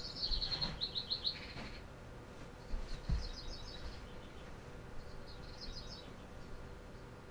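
A bird chirping in quick trills of rapid high notes, repeated three times with short gaps, with a couple of soft low thumps about a second and three seconds in.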